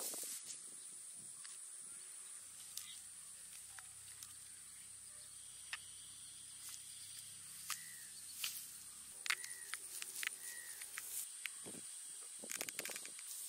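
Quiet open-field ambience: a steady high-pitched insect drone, with scattered light clicks and taps as a bunch of palm fruits is handled in the grass, and a few short bird chirps about two-thirds of the way through.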